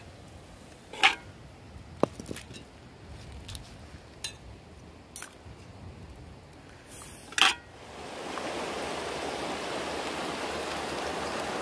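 A few scattered sharp clicks and knocks, like pots and utensils being handled, then a steady rush of water for the last few seconds.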